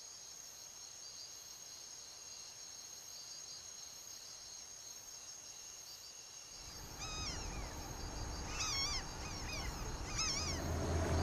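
Insects trilling steadily and faintly in tropical forest. About seven seconds in, the sound grows louder and a run of short, repeated chirping calls with bending pitch comes in. Near the end a low, steady engine hum joins.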